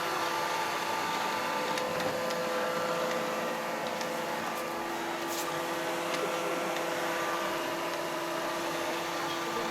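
Robot vacuum cleaner running steadily: an even motor hum and whine with a few faint ticks, carrying a cat riding on it.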